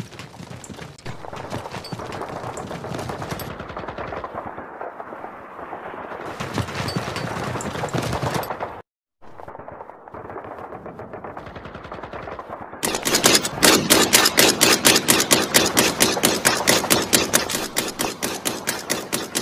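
Battle gunfire sound effects: rapid machine-gun fire, cut off briefly about nine seconds in, then louder and denser continuous automatic fire from about thirteen seconds on.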